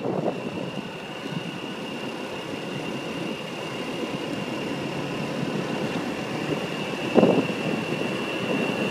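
Steady running and road noise from a vehicle travelling along a road, heard from on board, with a thin steady high whine throughout. There is a brief louder rush about seven seconds in.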